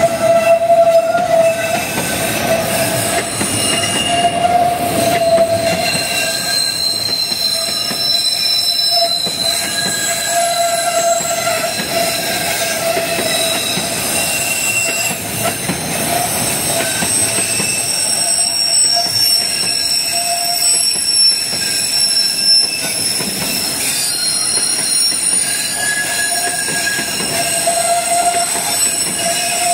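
Freight train wagons rolling past close by on a curve: a steady rumble and clatter of wheels on rail, with steel wheels squealing against the rails in several high, steady tones that swell and fade throughout.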